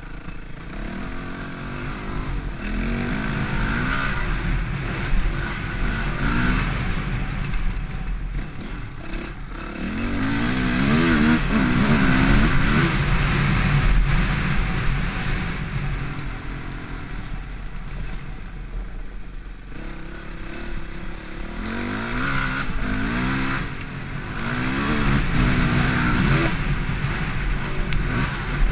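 Dirt bike engine under way on a rough dirt trail, heard from the bike itself: it repeatedly revs up through the gears in stepped rising climbs and eases off between them.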